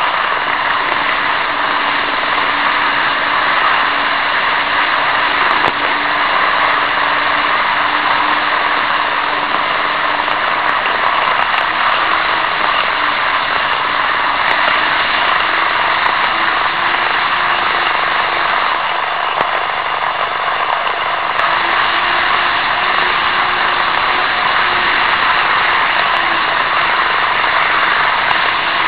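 N-gauge model trains running, heard close up from a keychain camera riding on a freight flatcar: a steady, loud rushing rattle of wheels on the track with a motor hum that wavers slightly in pitch.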